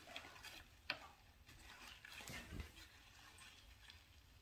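Near silence: room tone with a few faint clicks, one a little sharper about a second in.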